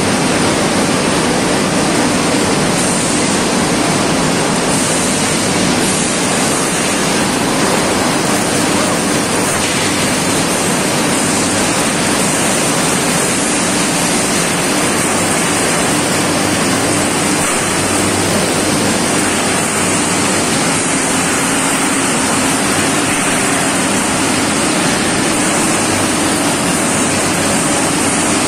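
Loud, steady rushing machinery noise from an ERW steel tube mill plant running, with no strikes, rhythm or changes.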